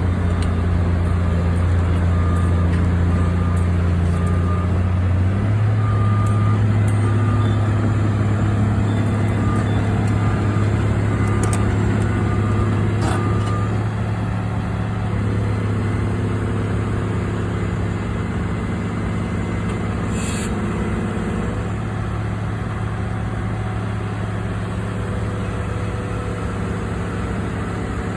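Caterpillar 345BL crawler excavator's diesel engine running steadily, its speed stepping up about five seconds in. A faint intermittent beeping sounds through the first half.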